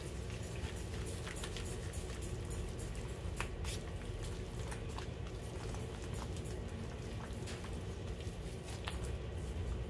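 A gloved hand smearing and working a soft margarine and powdered-sugar frosting against a granite countertop: soft squishing and patting, with a few light clicks, over a steady low hum.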